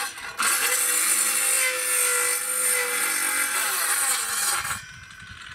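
Handheld electric circular saw cutting through a wooden board. It drops off for a moment near the start, spins back up, cuts steadily, and stops abruptly near the end as the board is cut through.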